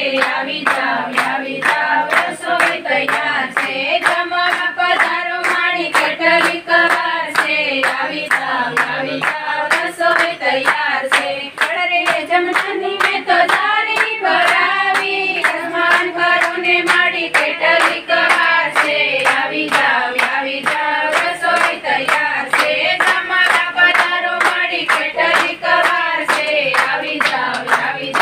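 A group of voices singing a devotional song together while clapping their hands in a steady beat, about two claps a second.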